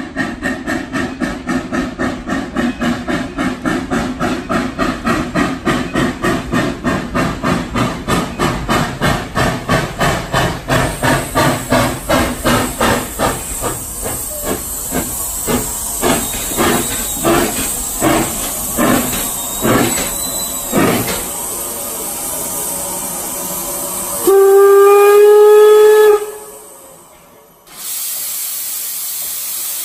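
4-4-0 steam locomotive Detroit & Lima Northern No. 7 running into the station, its exhaust beating about four times a second and slowing to about one a second as it comes to a stand. About 24 seconds in, one whistle blast of about two seconds, and near the end a steady hiss of steam venting from the open cylinder cocks.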